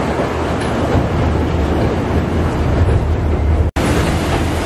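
Toy train running along its narrow-gauge track: a steady rumble of wheels and running gear with a low hum underneath. The noise breaks off for an instant about three and a half seconds in, then carries on the same.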